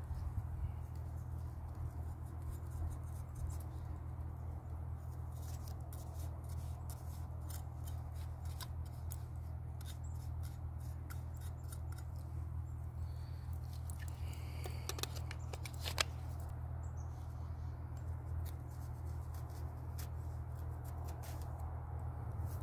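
A knife blade scraping and shredding fibrous tinder into fluff, with the fibres then pulled apart by hand, to make a bird's-nest tinder bundle. It goes as a run of quick, dry scratches, with one sharper click about sixteen seconds in.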